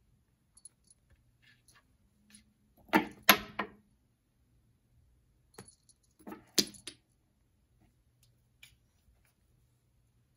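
Wooden blocks knocked off a wooden side table by a cat's paw, clattering down in two bursts: one about three seconds in and a second about six and a half seconds in.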